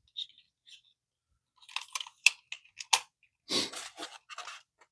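Packaging crinkling and rustling, with a few sharp plastic clicks, as a boxed toy is handled and lifted out. It starts after about a second and a half of quiet.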